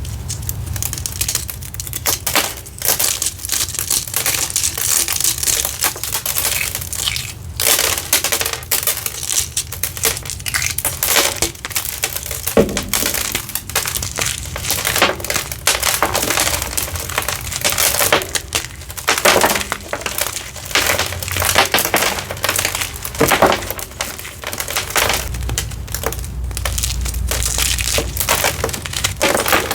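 Hard, over-dried citric-acid-reformed gym chalk being crushed and crumbled, a continuous run of crisp crunches and cracks with short pauses between handfuls.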